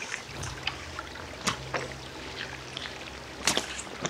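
Shallow stream trickling over stones, with footsteps splashing through the water and sharp knocks on wet rock, the loudest about one and a half and three and a half seconds in.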